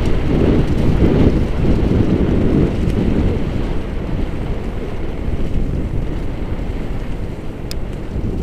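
Wind buffeting the microphone and tyres rumbling over a rough dirt trail as a mountain bike descends, a little louder in the first half, with one sharp click near the end.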